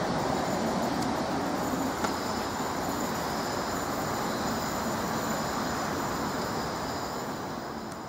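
British Rail Class 395 electric multiple unit running away along curved track, its wheel-on-rail rumble fading steadily as it recedes.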